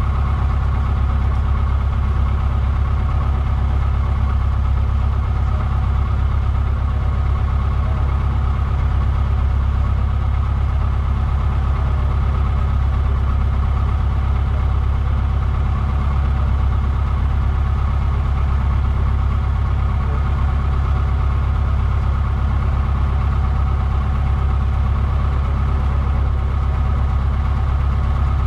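Cessna 150's four-cylinder air-cooled Continental O-200 engine and propeller idling steadily on the ground, heard from inside the cockpit.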